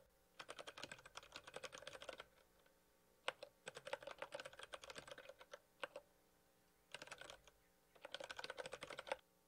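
Faint typing on a computer keyboard: four runs of quick keystrokes separated by short pauses.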